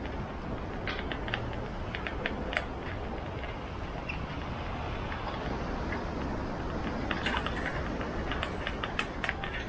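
Steady road and wind rumble of a moving bicycle, with scattered sharp rattling clicks in clusters about a second in and again near the end.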